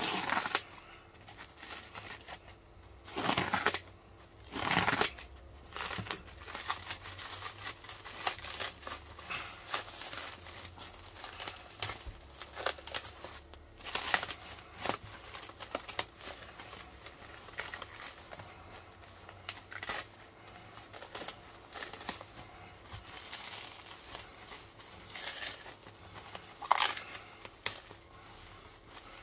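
Plastic stretch wrap on a parcel crinkling and tearing as it is slit with a utility knife and pulled away by hand, in irregular crackling stretches broken by several louder rips.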